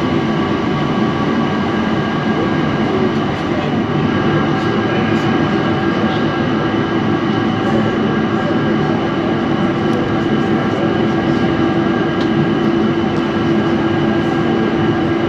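Cairngorm Mountain Railway funicular in motion: the carriage climbing through the tunnel toward the top station on its moving haul cable. It makes a steady, loud rumble with several constant humming tones throughout.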